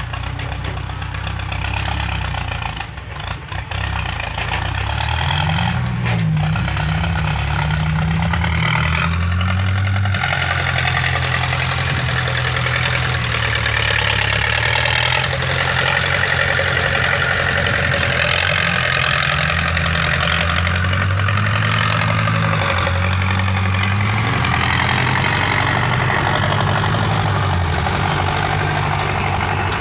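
A vehicle's engine running continuously, its pitch rising and falling again and again as it is revved up and eased off.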